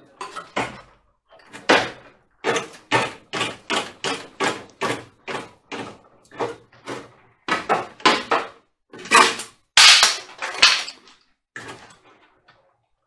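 The rusty sheet-steel front inner wing panel of a 2000 Mexican VW Beetle being wrenched back and forth by hand to tear it free. It gives a run of metallic crunches and creaks, about two or three a second, with a few short pauses, and the loudest come a little past the middle.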